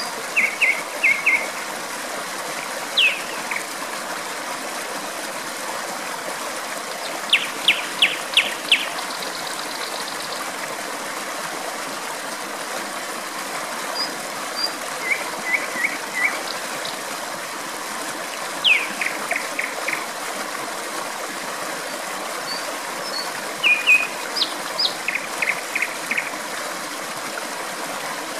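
A steady rush of flowing water, with a nightingale singing over it in short phrases of rapid repeated notes and quick downward-sweeping notes, separated by pauses of a few seconds.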